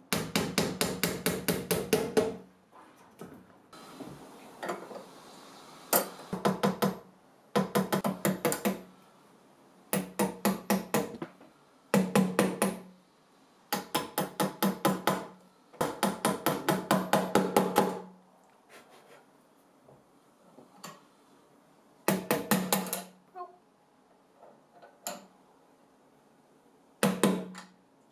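A small hammer rapidly tapping small nails and pins home, in quick runs of about six light strokes a second. Each run lasts one to two seconds and is followed by a short pause, and the strokes ring with a pitch.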